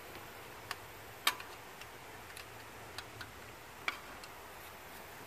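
A wrench working a 10 mm alternator bolt: about a dozen light, irregularly spaced metal clicks and ticks, the sharpest about a second in.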